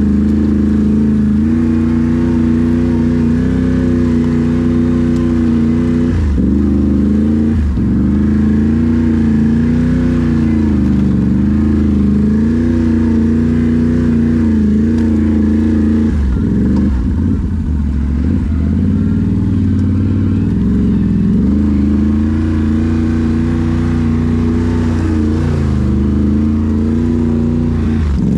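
Can-Am Renegade XMR 1000 ATV's V-twin engine running under load while riding, its pitch rising and falling as the throttle is worked. There are a few brief drops off the throttle, the longest about two-thirds of the way through.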